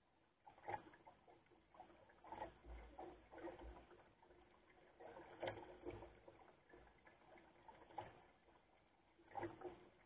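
Faint water splashing and lapping against the hull of a small wooden sailing skiff under way, in irregular bursts, with a low rumble of wind on the microphone a few seconds in.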